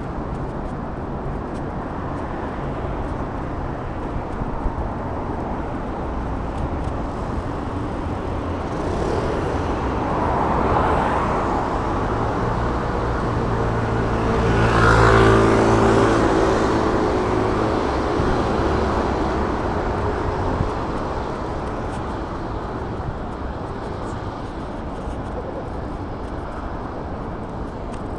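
City street traffic noise, steady throughout. A motor vehicle passes close, its engine hum swelling up and fading away, loudest about halfway through, with a smaller swell a few seconds before it.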